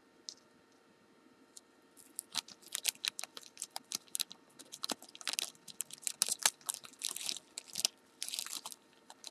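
Rapid, irregular small metal clicks and scrapes as a stuck driver pin is worked out of its chamber in a Kwikset-style pin-tumbler lock, starting about two seconds in.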